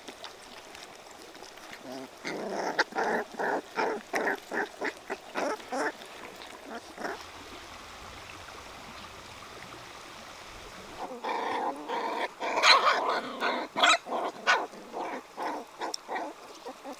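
Puppies growling and whimpering in quick short bursts as they eat together. The sound comes in two bouts with a quieter stretch between.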